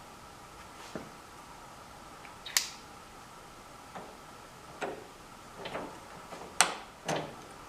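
Metal parts and tools being handled during work on a table saw: about seven short, sharp clicks and light knocks at uneven intervals, over a faint steady hum.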